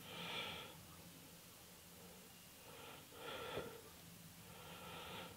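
Three faint breaths about two seconds apart, the first the loudest.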